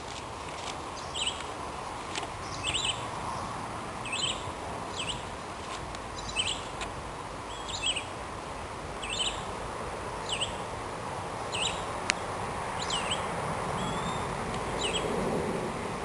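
A small bird chirping, short sharp chirps repeated about once a second, over steady background noise. A single sharp click about twelve seconds in.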